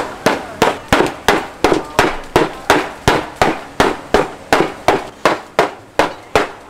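Two wooden mallets taking turns pounding a slab of peanut brittle on a thick wooden block, a steady run of sharp knocks at about three strikes a second. The pounding flattens the peanut candy into a thin sheet.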